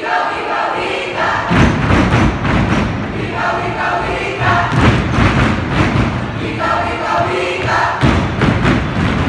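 Sabayang pagbigkas (Filipino choral recitation): a group of students chanting lines in unison in short phrases. Between the phrases come bouts of heavy low thumping.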